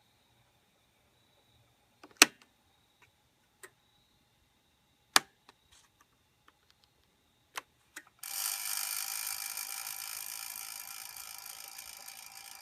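A few sharp, separate clicks, then about eight seconds in the Jet 1221VS lathe's motor starts suddenly with a steady whine that slowly grows quieter.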